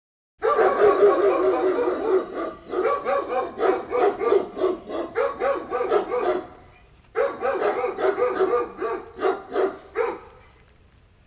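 Dog barking in quick runs of short barks, in two bouts with a brief pause a little over halfway through.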